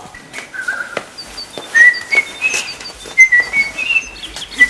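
Caged pet bird chirping: a run of short, high whistled notes that step up and down in pitch, with a few faint clicks.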